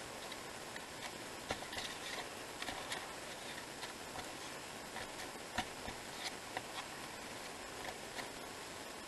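Light, scattered taps and clicks of a stamp being dabbed on an ink pad and pressed onto small pieces of card, over a faint steady hiss.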